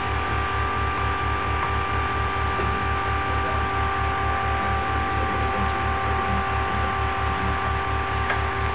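Home-built Steorn Orbo-style magnet motor running: a steady electrical hum with an even low pulsing, about five beats a second, and a few steady high whining tones.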